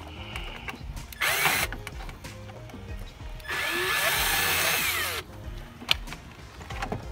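Cordless drill run in two bursts: a short trigger pull about a second in, then a longer run of a second and a half where the motor spins up, holds speed and winds down. A single sharp click follows near the end.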